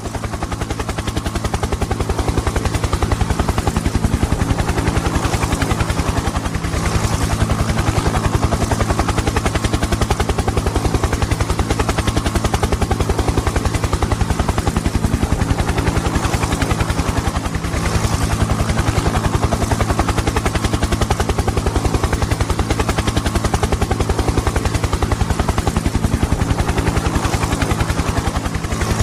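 Helicopter rotor sound: a steady, rapid, even chop of the main rotor blades over a low drone. It fades in at the start.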